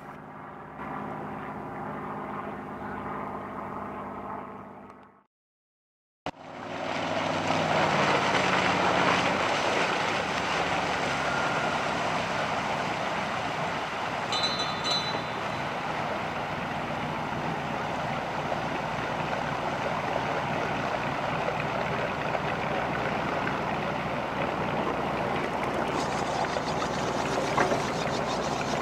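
Vintage motor runabout running at speed on calm water: a steady engine note under a loud, even rush of wake and spray. About five seconds in, the sound cuts out for a second; before that, an engine runs steadily with a clear, even pitch.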